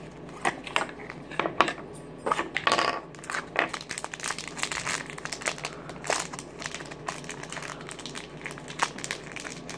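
Plastic packaging of a Shopkins toy two-pack being worked open by hand: a busy run of short plastic crinkles, crackles and clicks.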